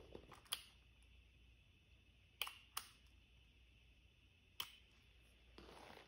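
Four sharp small clicks, two of them close together, as standard 1157 bulbs are handled and twisted into their bayonet sockets; near silence between them.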